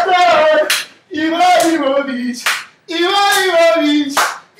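A voice singing in short held phrases of about a second each, three phrases with brief pauses between them. Each phrase ends in a short, sharp noisy accent.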